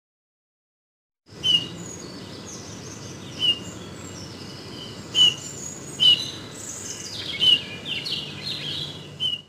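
European bullfinch calling: short, clear piping notes, six of them a second or two apart, starting about a second in, over fainter higher chirps and a steady low background hiss.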